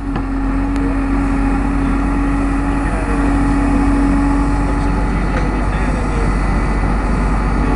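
Backhoe engine running steadily under load, a continuous machine drone with a steady held hum.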